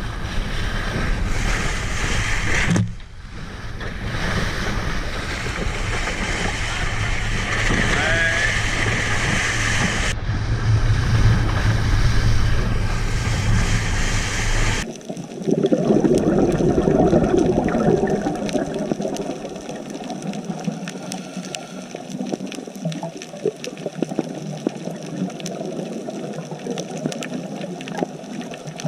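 Boat engine running with rushing water and wind noise. About fifteen seconds in, the microphone goes under the water and the sound turns muffled: bubbling and water noise with small clicks.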